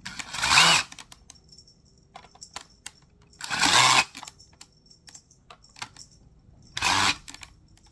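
Plastic parts of a Dyson cordless vacuum and its battery pack being handled: scattered small clicks and clatter, with three short, louder scraping noises near the start, in the middle and near the end.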